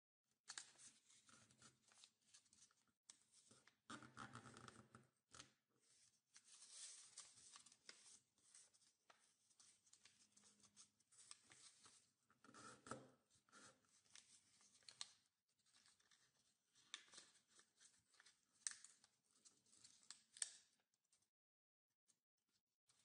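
Quiet rustling and crinkling of origami paper as fingers fold it and run along the creases, in a string of short scraping strokes with a couple of sharper crackles near the end.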